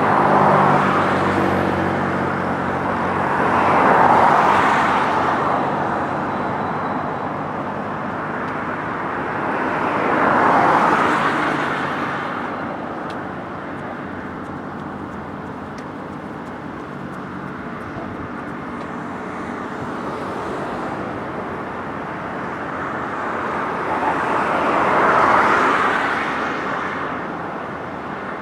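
Road traffic on a bridge: a steady hum of traffic with vehicles passing close by four times, each swelling up and fading away.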